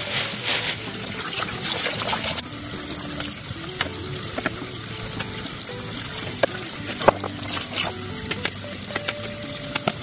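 Tap water running steadily into a steel sink and splashing over a gutted catfish, with a few short knocks from handling. Soft background music plays underneath.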